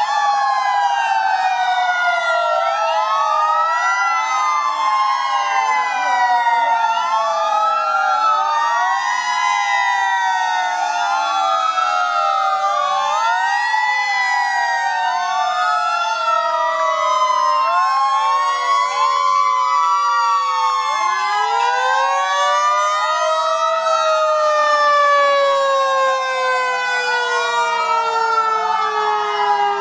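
Many fire engine sirens sounding together, their wails rising and falling out of step with one another. Under them runs a long tone that sinks slowly in pitch.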